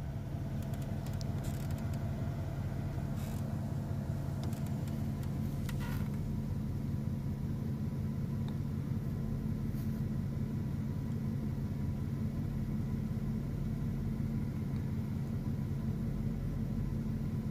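Steady low hum of an idling engine, unchanging throughout, with a few faint clicks.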